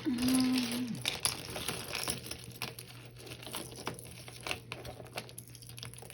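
Plastic bag crinkling and rustling as jewelry is rummaged through, with many small clicks and taps of necklaces and beads being handled.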